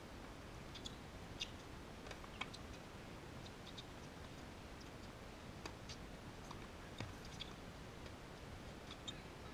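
Faint, sharp clicks scattered irregularly over a steady background hiss: a tennis ball being struck and bouncing during a hard-court rally.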